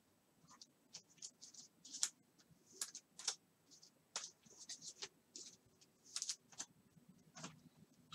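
Faint, irregular light clicks and scratches from small objects being handled off to the side, a few each second.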